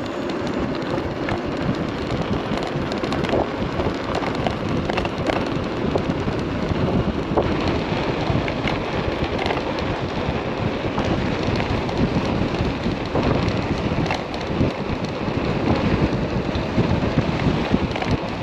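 Steady wind rush buffeting the microphone of an electric bike ridden hard at speed, with road and tyre noise beneath.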